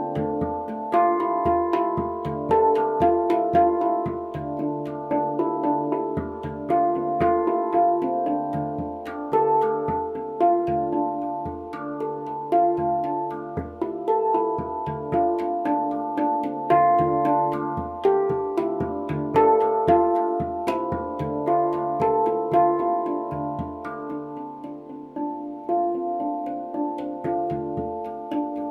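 Handpan played with the fingers: a steady flow of quick struck notes that ring on and overlap, with low thumps beneath, easing a little softer near the end.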